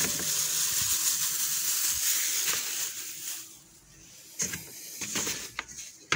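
Steady hissing rustle of a powdered feed additive being poured into a bowl on a digital scale. It stops about three seconds in, followed by a few short handling knocks and rustles.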